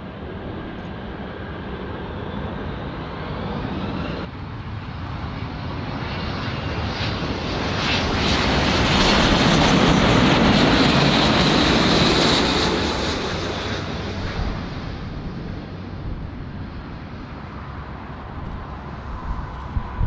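Jet engines of a Boeing 777 on final approach, swelling to a loud pass about halfway through with a high whine, then fading as it descends to the runway. Before that, for the first few seconds, there is the steadier noise of a Boeing 747 rolling out on the runway after landing.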